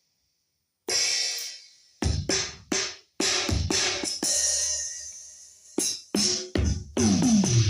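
Roland SPD-20X electronic percussion pad playing its drum and cymbal sounds as the pads are struck one at a time in an irregular test pattern: a cymbal crash about a second in, then a run of separate drum hits, ending with a tom-like hit that falls in pitch. The pad is producing sound again after repair of its no-sound fault.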